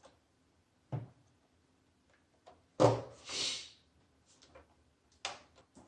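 Plastic clicks and knocks as a side panel is pried off an RC radio transmitter by hand. The loudest click comes about three seconds in, followed by a short hiss, with two lighter knocks near the end.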